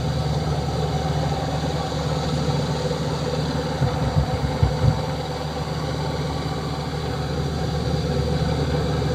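1999 Rheem heat pump outdoor unit running in cooling mode: a steady low hum of compressor and fan with a chopping sound like a helicopter hovering. It is heard as an earlier recording played back and re-filmed.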